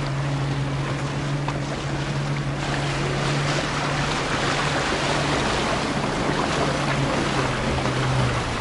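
Motorboat engine running at a steady low hum over water splashing and wind on the microphone; the engine hum drops away near the end.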